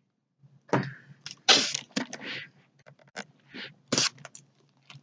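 A clear plastic zip-top bag full of small plastic toy figures being handled: irregular crinkles and rattles with a few sharp clicks.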